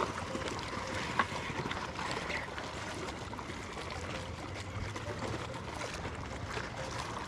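Steady wind and water noise aboard a fishing boat, with one short sharp click a little over a second in.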